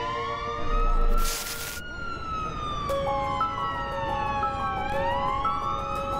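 Emergency-vehicle sirens: a slow wail rising and falling in pitch, with a stepped two-tone siren joining about three seconds in. A short burst of noise about a second in is the loudest moment.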